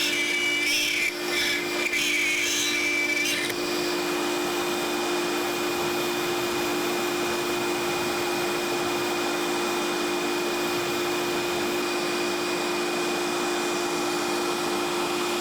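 CNC router running steadily: an even motor hum with a constant high whine. Music plays over it for the first few seconds.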